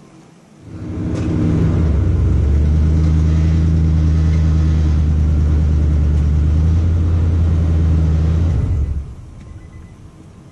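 Pickup truck engine revving up and held at steady high revs under load for about eight seconds while a strapped log is pulled free of a trailer, then dropping back near the end.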